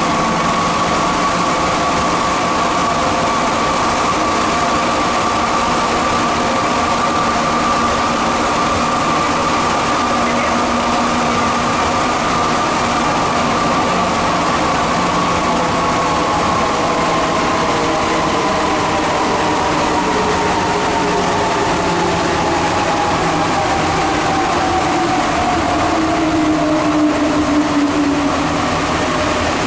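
Metro train running, heard from inside the passenger car: a steady loud rush of running noise with a motor whine. The whine holds its pitch, then falls steadily over roughly the last dozen seconds as the train slows.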